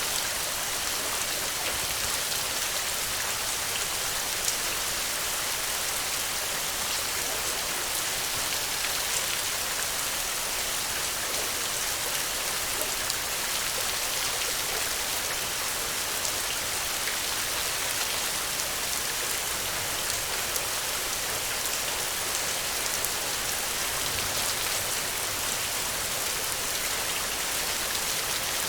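Steady rain falling on the ground, an even hiss with many fine drop ticks.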